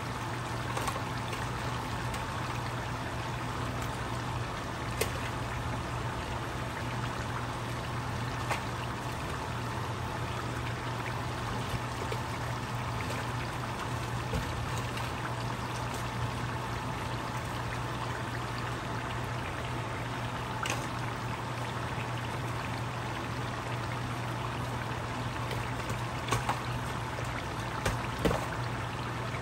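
Large pan of palm oil and meat boiling on a stove: steady bubbling with occasional sharp pops, over a low steady hum.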